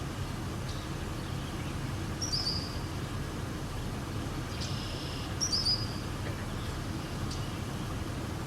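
Birds giving short high calls twice, about two seconds in and again about five and a half seconds in, with a few sharp chip notes between, over a steady low rumble.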